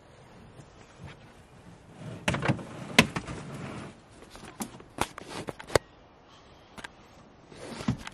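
Camp gear being handled at a pickup truck bed: a few scattered knocks and sharp plastic clacks, in small clusters, from containers and lids being moved about.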